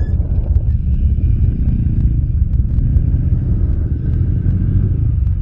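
ATV (quad) engines running close by: a steady low rumble with faint scattered ticks on top.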